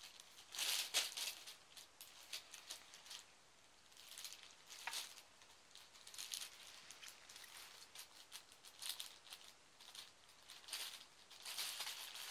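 Thin plastic carrier bag crinkling and rustling in irregular bursts as a kitten paws at it and rolls on it, loudest about a second in and again near the end.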